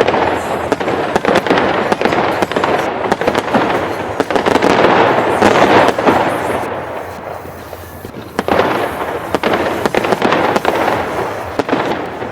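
Fireworks display: dense crackling with many sharp pops and bangs, swelling to a peak about five seconds in, easing briefly, then another volley.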